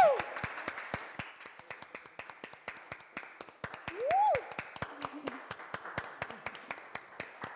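A small audience clapping, the separate claps distinct, with one short rising-and-falling cry about four seconds in.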